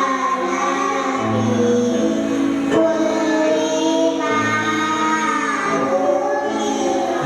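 Recorded song with singing voices and accompaniment playing as dance music.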